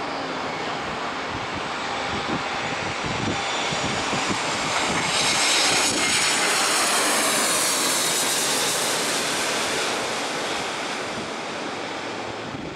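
Airbus A321-200 airliner's jet engines passing low overhead on landing approach: a steady rush that swells to its loudest about five to eight seconds in, with a high hiss that sweeps in pitch as the plane goes over, then fades as it moves away toward the runway.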